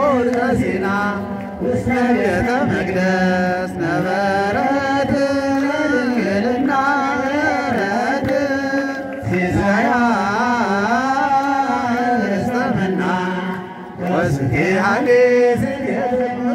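A male voice singing an ornamented, wavering Ethiopian Orthodox hymn chant into a handheld microphone, over a steady held low note.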